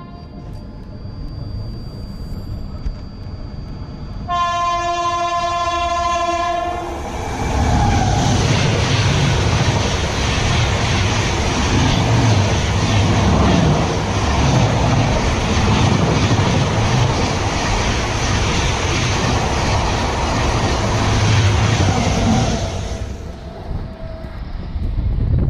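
Mumbai Rajdhani Express overtaking at high speed on the next track. Its horn sounds one long blast about four seconds in, then the train rushes past for about fifteen seconds with wheels clattering over the rail joints, fading away near the end.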